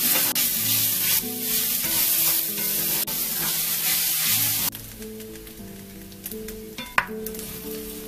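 Fried rice sizzling loudly in a hot frying pan as it is stir-fried with wooden spatulas. About four and a half seconds in, the sizzle drops suddenly to a much quieter hiss, with one sharp knock near the end.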